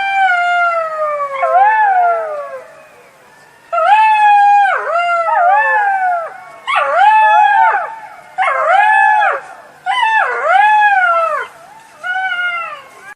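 Jackal howling: one long wail that falls in pitch, then a string of about six shorter, arching wails, each rising and then dropping, coming roughly one a second.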